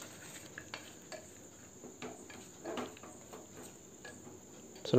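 Faint stirring in a pressure cooker as mutton pieces are sautéed with salt and turmeric: a few soft clicks and knocks of a spoon against the pot, over a steady high-pitched hum.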